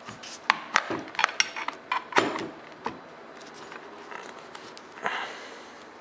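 Tikka T3X barreled action being seated back into its plastic stock: a quick run of sharp clicks and knocks of metal against plastic in the first three seconds, then a brief rub of handling about five seconds in.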